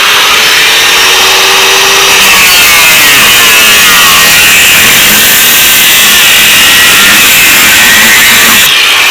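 Power tool with a metal cut-off wheel grinding through metal, running loud and continuous, its pitch wavering as the wheel bites into the cut.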